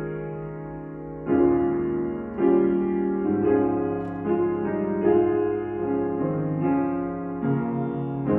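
Slow piano music: chords struck about once a second and left to ring, fading slightly before each next one.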